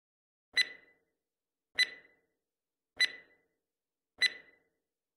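Quiz countdown timer sound effect: four short, sharp ticks about a second apart, each with a brief high ring, and silence between them, marking off the seconds left to answer.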